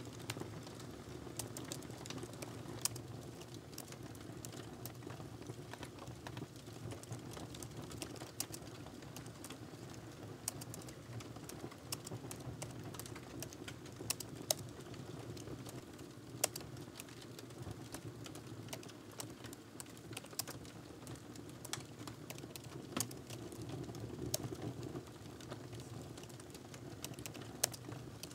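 Typing on a laptop keyboard: a steady run of light, irregular key clicks.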